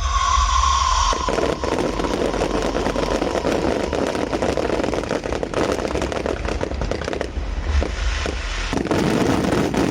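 Fireworks crackling and popping in a dense, continuous run of rapid small bangs, after a brief high tone that slides slightly down in the first second.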